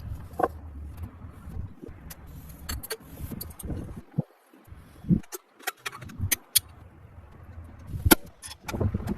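Irregular metallic clicks, clinks and knocks over a low rumble, as of metal parts and tools being handled, with a sharp loud click near the end.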